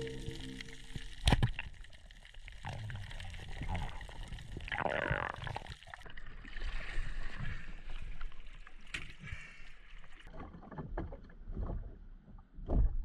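Irregular water splashes and sloshing, like paddle strokes in the water, with a few knocks.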